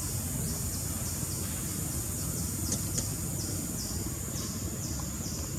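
Insects calling in a repeating series of short, high-pitched buzzing pulses, about two a second, over a steady high hiss and a low rumble, with a couple of faint clicks near the middle.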